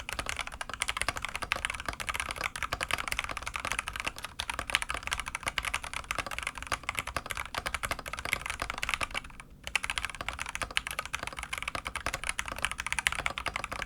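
Gamakay CK68 mechanical keyboard being typed on quickly and continuously in a sound test, a clacky stream of keystrokes with a brief pause about nine and a half seconds in.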